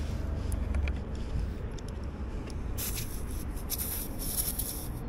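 Compressed air hissing at an electric scooter's front tyre valve from a service-station compressor hose, starting about three seconds in and lasting about two seconds, after a few light clicks. A low rumble runs underneath.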